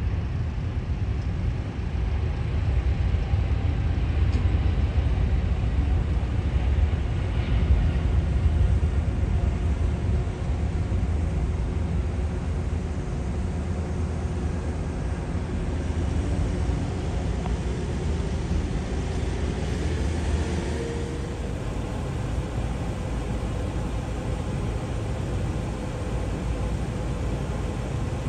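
Jet airliner engines at takeoff power: a steady deep rumble, loudest in the first half, with a faint rising whine about twenty seconds in.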